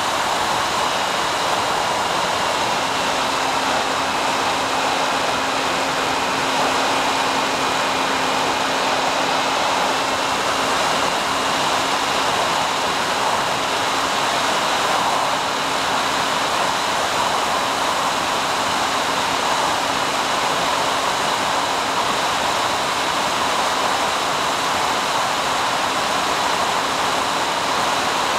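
Steady rushing hiss of static on an analog FPV video link's recorded audio, with a faint steady hum joining about three seconds in and faint high whines above.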